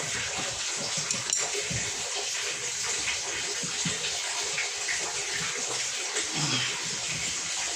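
Water running and splashing steadily, with a single sharp click about a second in.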